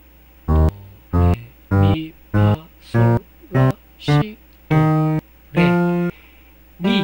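Sampled piano notes from LMMS's AudioFileProcessor (piano01.ogg sample on the low piano track), played one key at a time on its on-screen keyboard. There are about ten short single notes with gaps between them, and two are held longer near the end.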